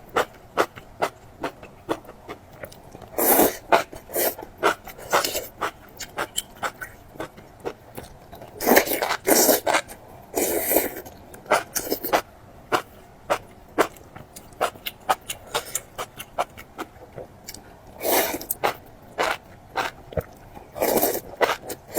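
Close-miked eating: quick wet clicks and crunches of chewing go on throughout. About five louder, longer bursts of about half a second each break in, the loudest around a third of the way in.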